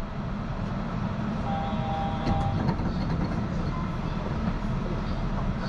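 Steady low rumble of a Yurikamome rubber-tyred automated guideway train heard from inside the car. A short steady tone sounds about a second and a half in, with a few faint clicks just after.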